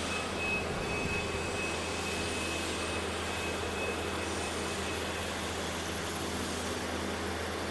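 Steady machinery hum with hiss, holding even throughout, plus a faint high-pitched whine and no distinct knocks or clicks.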